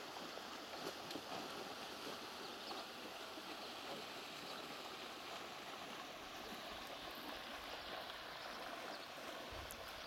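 Steady, even rushing noise of open water at a river's edge, with a few faint clicks and low rumbles in the second half.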